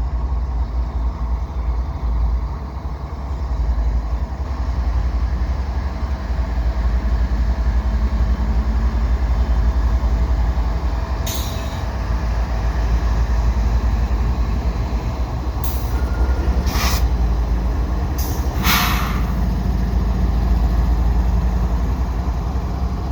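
Freight train crawling past slowly, with a steady deep rumble throughout. From about halfway on, a handful of short, sharp high-pitched sounds cut in, two of them close together a little past three-quarters of the way.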